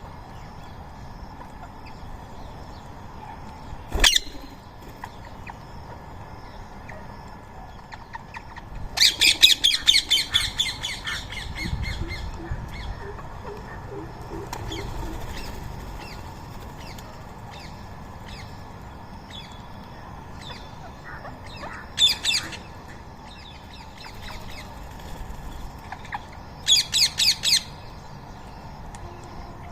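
Rose-ringed parakeets screeching in runs of rapid, shrill repeated notes: a long run about nine seconds in, then shorter runs later and near the end. A single sharp click about four seconds in.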